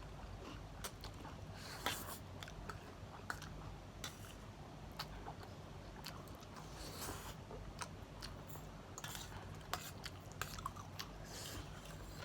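People chewing and biting food, with irregular sharp crunchy clicks and a few longer crackling bites.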